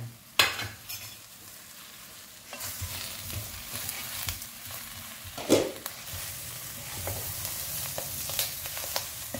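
Potato and cauliflower sizzling in a pot as they are stirred with a spatula, with the spatula scraping and clicking against the pot. There is a sharp click just after the start. The sizzle and stirring pick up after a couple of seconds, with a louder knock on the pot about halfway through.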